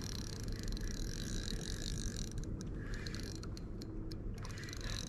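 Spinning reel being worked against a hooked fish, its gears giving a steady whir.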